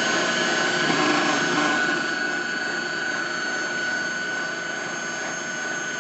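Electric stand mixer running steadily, its beater whipping a thick, creamy paste in the bowl: a constant motor whine over a whirring hiss, dropping slightly in level about two seconds in.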